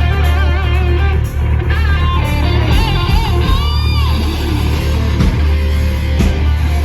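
A live hard rock band playing an instrumental passage. An electric guitar lead plays bent, wavering notes over steady bass and drums, for about the first four seconds.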